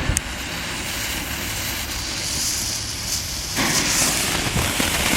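Consumer firework going off with a steady hiss. About three and a half seconds in it changes to a brighter crackling spray.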